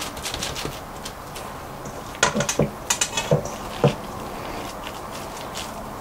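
Hands scooping and patting crab cake mixture in a metal mixing bowl, with soft rustling throughout. A handful of sharp clinks against the bowl come between about two and four seconds in.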